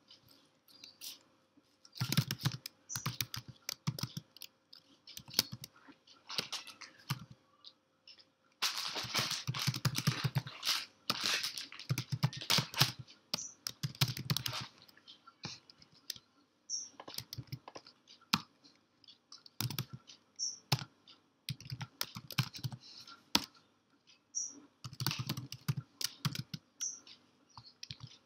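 Computer keyboard typing, fast keystrokes in bursts separated by short pauses.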